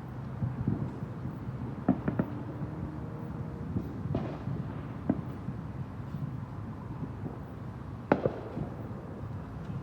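Fireworks going off: several scattered sharp bangs, the loudest about eight seconds in, over a steady low rumble.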